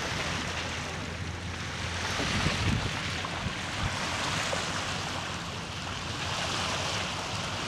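Water rushing along a sailboat's hull and wind buffeting the microphone as the boat moves through calm sea, over a low steady drone from the boat's engine.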